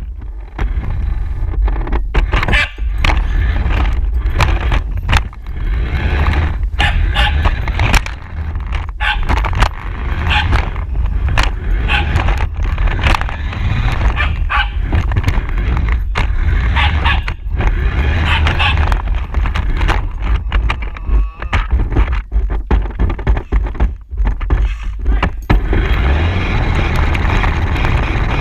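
A radio-controlled car driving over rough ground, heard through a GoPro mounted on the car: a loud, steady rumble with constant rattling, knocks and scrapes. A dog barks and goes at the car.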